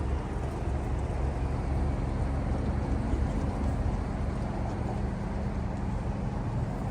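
A vehicle engine idling: a steady low hum with no changes.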